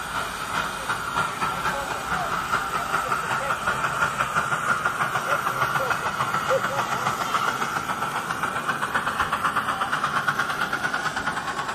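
Miniature live-steam locomotive in GWR green running past under power: a steady hiss of steam with fast, regular exhaust beats, about four to five a second, easing off near the end.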